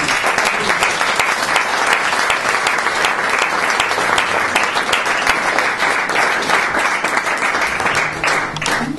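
Audience applauding: dense, steady clapping from many hands that thins out near the end.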